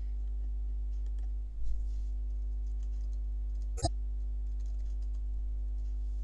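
Typing on a computer keyboard, light scattered key clicks with one sharper click about two-thirds of the way through, over a steady low electrical hum.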